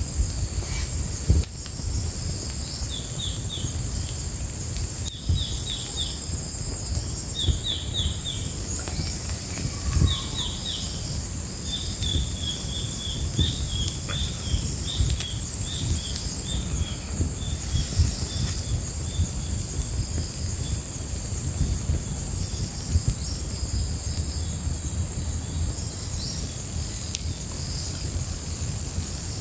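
Outdoor wood fire crackling, with irregular sharp pops over a low rumble. Insects keep up a steady high drone, and a run of short quick chirps comes in groups during the first half.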